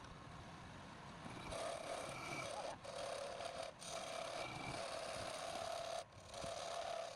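Wood lathe running with a turning tool cutting the spinning workpiece: a steady hum with a scraping hiss, which breaks off briefly three times.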